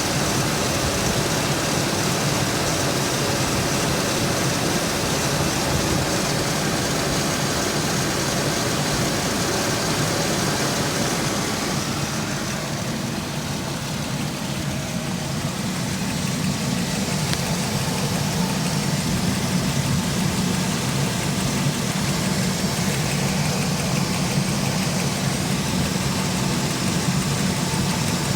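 2003 Chevy Express van's engine idling steadily.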